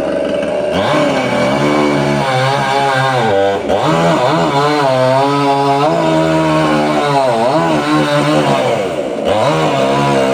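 Chainsaw running hard, its engine pitch dipping and rising again several times as it is throttled or loaded in the cut.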